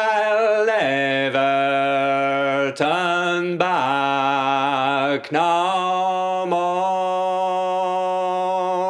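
A man singing unaccompanied in long, slow, drawn-out held notes, chant-like, with brief breaks between phrases.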